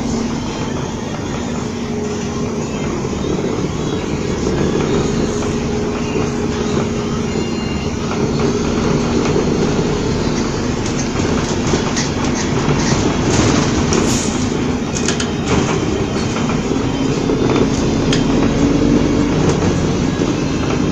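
MAZ bus running: a steady engine and drivetrain drone with humming tones that slowly shift in pitch, and a cluster of rattles and clicks about halfway through.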